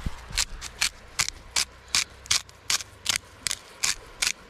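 Himalayan sea salt grinder being twisted, a rhythmic ratcheting crunch of about two and a half grinding strokes a second as salt is ground.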